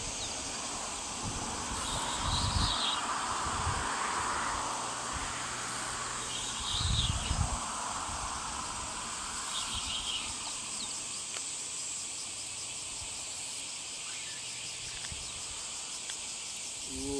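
Steady high chirring of summer insects, with a few short louder bursts of calling. A few low thumps come through about two and seven seconds in.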